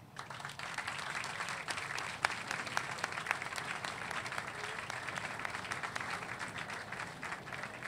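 Small seated audience applauding, a dense patter of many hands clapping that starts right after a speech ends.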